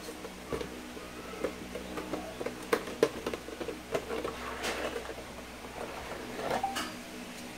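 Clear plastic figure packaging being handled and slid out of its cardboard box: irregular plastic clicks, taps and crinkles, the sharpest about three seconds in.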